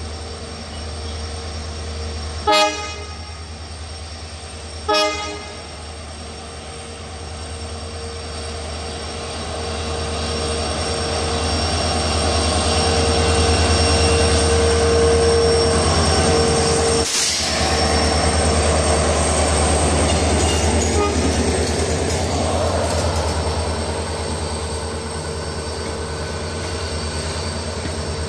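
Two short blasts of an Indian Railways locomotive horn a few seconds in, over the steady rumble of a train. The train's running sound then swells to a peak around the middle and slowly fades as it passes.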